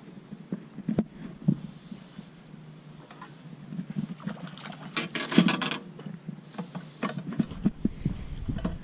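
Baitcasting fishing reel being cranked while reeling in a hooked bass: scattered gear clicks, then a quick dense run of clicks about five seconds in. A low rumble comes in near the end.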